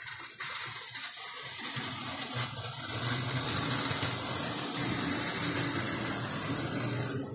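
Lionel O-27 model train running on three-rail track: a steady electric motor hum with the wheels rumbling on the rails, growing louder about two and a half seconds in.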